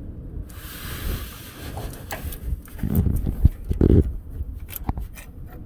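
Hand tools clinking and knocking against metal in a pickup's engine bay while a fuel pump's bolts are worked loose. Two heavier thumps come about three and four seconds in, after a brief hiss near the start.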